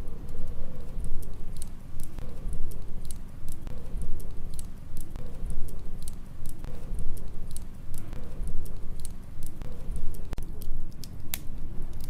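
Wood fire crackling in a fireplace, with frequent sharp pops and snaps over a low, steady rumble of storm wind.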